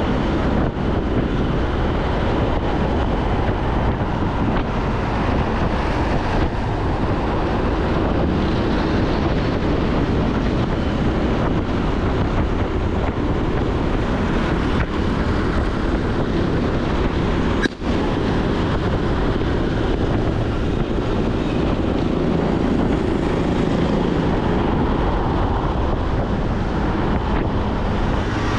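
Wind buffeting the microphone of a riding motorbike, mixed with road and engine noise, steady throughout. It briefly cuts out once about two-thirds of the way through.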